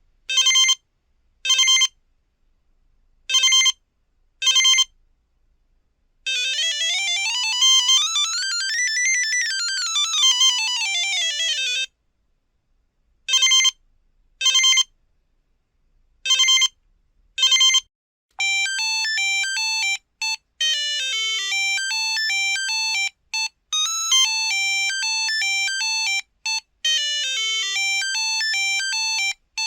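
Samsung Anycall SCH-X140 mobile phone's monophonic ringtones and effect sounds, one buzzy tone at a time. First come pairs of short beeps, then a fast run of notes that climbs and falls back over about five seconds, then more paired beeps. From about eighteen seconds in, a quick bouncing ringtone melody plays.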